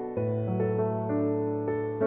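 Solo piano background music, slow and soft: a low bass note struck just after the start and held under higher notes that change about every half second.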